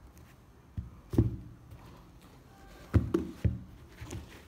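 Hands handling a pair of sneakers and setting them down on a table: a few dull knocks and taps, two about a second in and a cluster around three seconds in.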